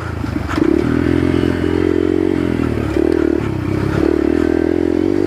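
Yamaha TTR 125's single-cylinder four-stroke engine running on a dirt trail, its note dropping and picking up again a few times, with a few knocks and rattles from the bike over rough ground.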